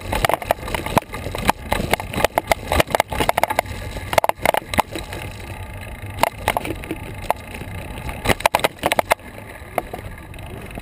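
Irregular clatter of knocks and rattles from a moving bicycle and its mounted Garmin VIRB action camera jolting over bumps in the path, over a low rumble of tyres and wind. The knocks thin out after about nine seconds.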